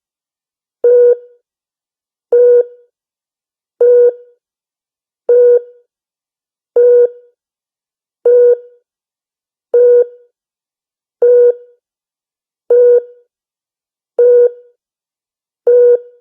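The USS Enterprise's 'deflector alert' sound effect: a short electronic alarm beep repeating at a steady pace, about one every second and a half, each beep cutting off with a quick fade.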